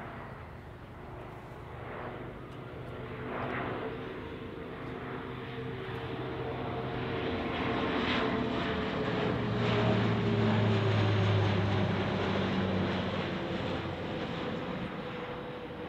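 Alenia C-27J Spartan's twin Rolls-Royce AE 2100 turboprops and propellers humming as the aircraft banks overhead. The sound grows louder to a peak about ten seconds in, then fades, its pitch sagging slightly as it passes.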